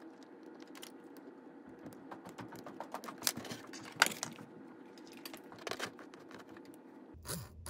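Scattered small clicks and taps of a screwdriver and fingers on the metal chassis of a model locomotive as the motor mount screw is driven in and the parts are fitted, the sharpest click about four seconds in, over a faint steady hiss.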